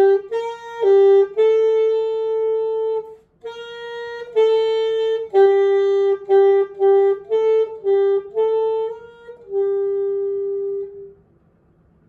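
A single wind instrument playing a slow, simple melody of held notes, one at a time. The notes break off briefly for a breath about three seconds in, and the tune ends on a long held note near the end. This is a beginner band-book exercise, played with its dynamics: soft, swelling to moderately loud, then fading back to soft.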